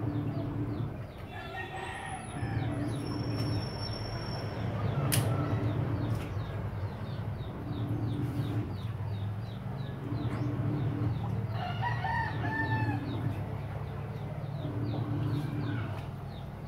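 A rooster crowing twice, about two seconds in and again about twelve seconds in, over a steady low hum.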